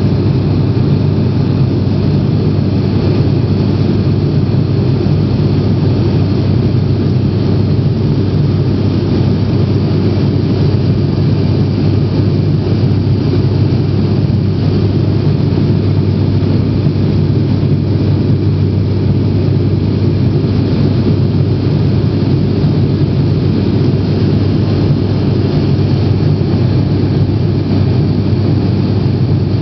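Steady drone of a turboprop airliner's engines and propellers heard inside the cabin in flight: a constant low hum with a hiss of air noise above it.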